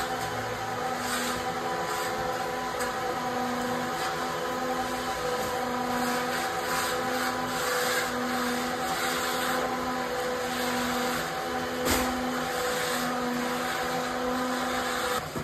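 Steady hum of an electric machine's motor, with a low note that pulses in a regular rhythm a little faster than once a second. A single short knock sounds about twelve seconds in.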